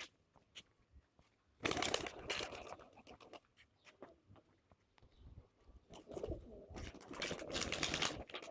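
Domestic pigeons cooing, with two loud flurries of wing-flapping, one about two seconds in and another from about six seconds to near the end.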